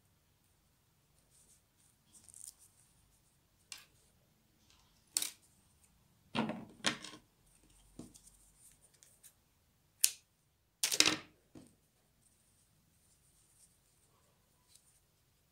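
Scattered light knocks, clicks and scrapes of hands handling a wooden skewer knitting needle and a small knitted piece on a wooden tabletop, loudest as two sharp knocks about a second apart near the ten-second mark.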